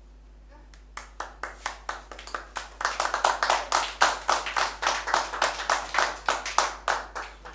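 A small group of people clapping: the applause starts about a second in, grows louder and stops just before the end.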